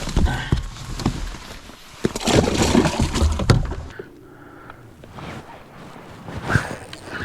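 Water sloshing and splashing with knocks and handling noise on a bass boat, in two loud stretches, the second starting about two seconds in and stopping at about three and a half seconds: a small bass being put into the livewell.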